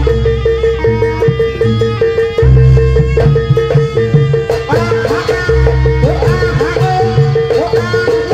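Live Javanese traditional ensemble music accompanying a Buto dance: clanging pitched metal percussion over heavy drum pulses, with a steady held note underneath. From about halfway a high wailing melody joins, sliding up in pitch again and again.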